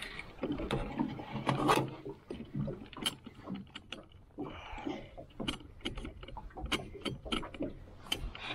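Irregular clicks and light knocks of a collapsible wire-mesh fish basket and its rope being handled against the side of a small metal boat.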